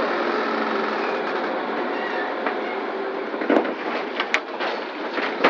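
Crane hoist running steadily as a heavy steel coil in chain slings is lowered onto wooden blocks, with a few sharp knocks in the second half as the load settles.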